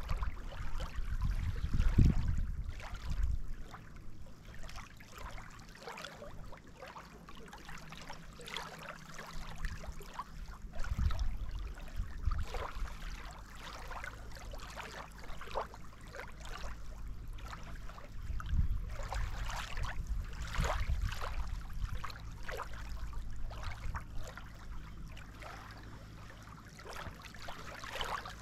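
Lake water lapping and splashing in the shallows, with wind buffeting the microphone in uneven low rumbles.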